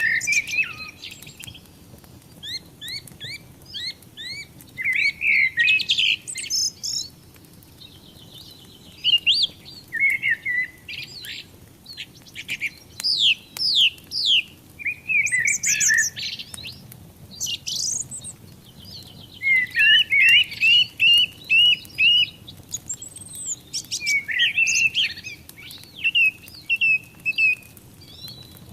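Songbirds chirping and singing in quick runs of rising and falling notes and short trills, one after another, over the faint crackle of a burning fire.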